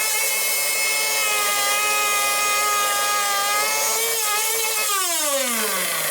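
Hangkai 6.0 two-stroke outboard motor running steadily at high revs on its test run, after its broken reed valve petal was replaced. The revs dip briefly about four seconds in, then fall away steadily over the last second.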